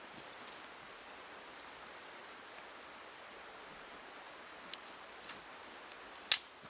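Wood campfire burning with a steady hiss and a few sharp crackling pops, the loudest near the end.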